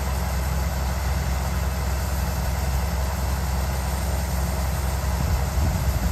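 A heavy farm machine's diesel engine runs steadily at idle, heard as a constant low hum from inside the cab.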